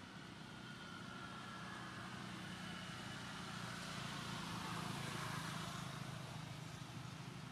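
A motor vehicle's engine running with a steady low hum; the noise swells to its loudest around four to six seconds in and then eases off, as a vehicle passing by.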